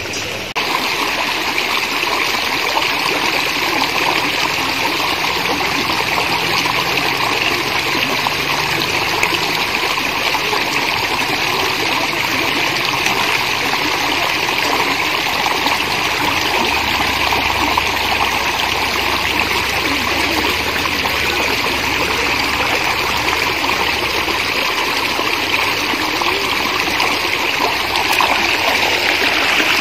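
Water running steadily over and between rocks in a small stream, a continuous even rushing.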